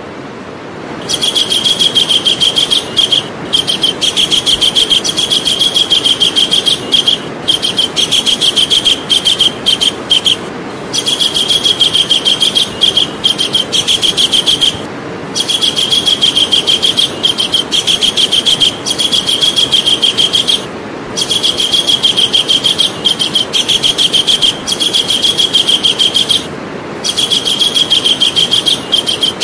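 Javan kingfisher calling: long rattling runs of fast, evenly repeated high notes, each run lasting a few seconds and broken by brief pauses, over a steady background hiss.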